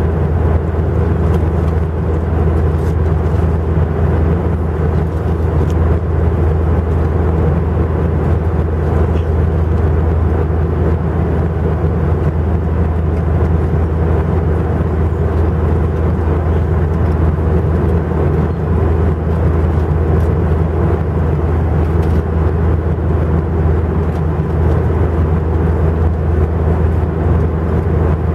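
Cabin noise of an Airbus A320 heard beside its IAE V2500 turbofans during the climb: a loud, steady drone of engine and rushing air, strongest in a deep low rumble.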